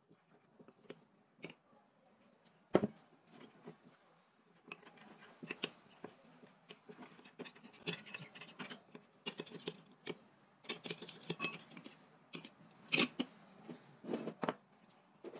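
Metal spoon stirring a flour batter in a glass bowl, scraping and clinking against the glass. There is one sharp knock about three seconds in, then quick, uneven stirring strokes with a few louder clinks near the end.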